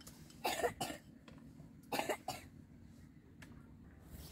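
A person coughing: two short coughing bouts, each a quick double cough, about half a second and two seconds in.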